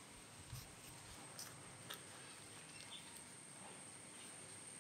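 Faint rustles and a few soft crinkles of a banana leaf being folded and pressed by hand into a tight parcel, over near silence.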